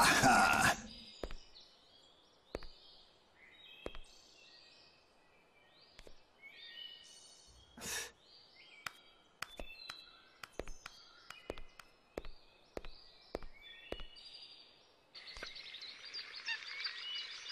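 Birds chirping over a quiet outdoor background, broken by scattered sharp clicks and taps. About fifteen seconds in, a louder, busier noise with steady tones comes in and grows.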